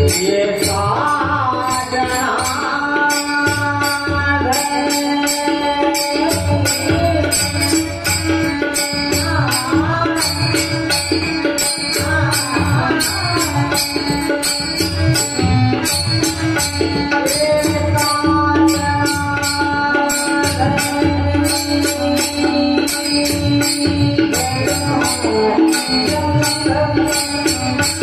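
Devotional bhajan music: a man singing a gliding melody over a steady held drone, with a hand drum and small hand cymbals struck in a regular beat.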